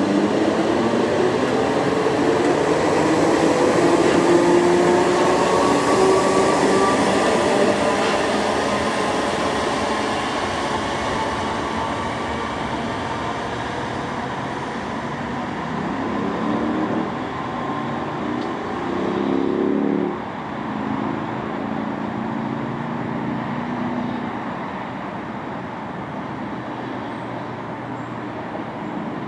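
Merseyrail electric multiple-unit train running at the station, its motor whine falling in pitch over the first dozen seconds over steady running noise. Stepped tones rise about two-thirds of the way in and cut off abruptly, then the sound slowly fades.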